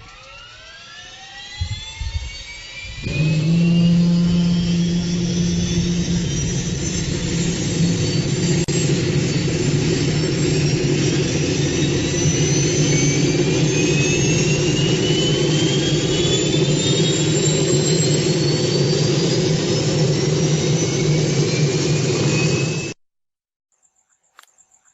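Aircraft jet engine turbine with a whine rising in pitch. About three seconds in, a loud steady roar comes in and holds while high whining tones keep climbing, until it cuts off abruptly near the end.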